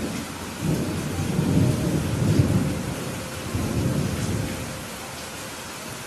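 Steady rain hissing, with a roll of thunder that rises about a second in, swells twice and fades out before the end.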